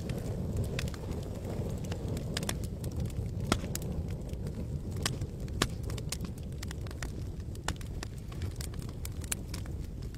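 Campfire burning: irregular sharp crackles and pops from the wood over a steady low rumble.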